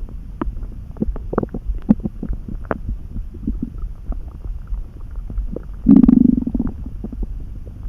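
Human stomach gurgling and rumbling: a scatter of small bubbling pops and clicks over a low rumble, with one louder low growl about six seconds in, lasting under a second.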